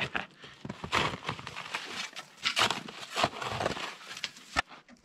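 Crunching and scraping in packed snow as a small plastic snow shovel digs, in a series of uneven strokes with a few sharper hits.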